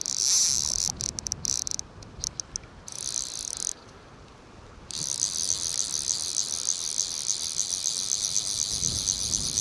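Stillwater PL-C fly reel clicking rapidly while a hooked trout or grayling is played. The clicking comes in stop-start bursts at first, then runs without a break from about five seconds in.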